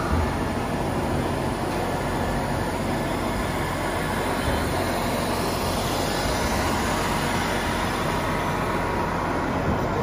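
Steady mechanical drone of a large 1:8 scale RC model excavator working its arm and bucket, mixed into the constant din of a busy exhibition hall.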